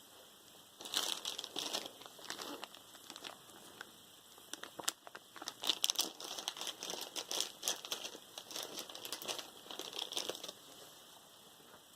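Packaging crinkling as it is handled and unwrapped: irregular crackly rustling starting about a second in, easing briefly, then running on until shortly before the end.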